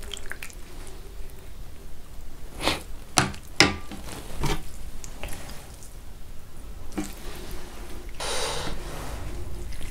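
Rice and meat soup being mixed by hand on a plate: wet squishing of rice between the fingers, with a few sharp clicks and knocks, the loudest about three and a half seconds in.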